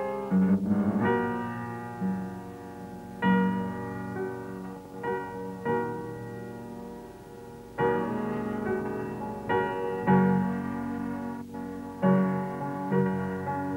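Slow piano music: chords struck every second or two, each ringing on and fading before the next.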